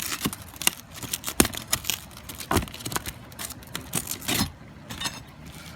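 Old asphalt shingles and roofing layers being pried up and torn off: a run of irregular sharp cracks, knocks and scrapes that thins out after about four and a half seconds.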